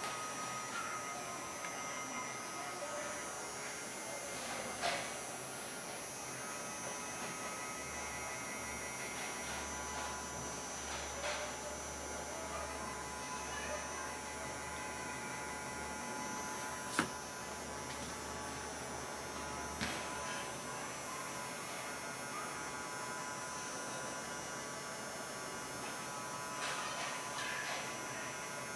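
Small 12 V brushed DC gear motor running steadily with a hum as its crank linkage slowly rocks a steel arm. A few sharp clicks stand out, the loudest about halfway through.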